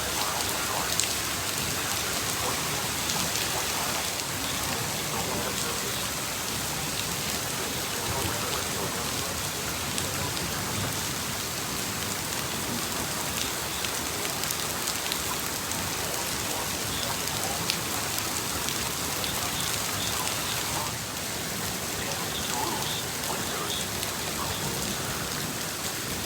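Storm rain falling steadily, with scattered sharp ticks of impacts on a surface.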